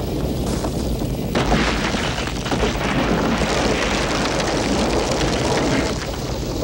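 Film sound effects: a steady deep rumble, then a loud, explosion-like roar that comes in suddenly about a second and a half in and eases off near the end.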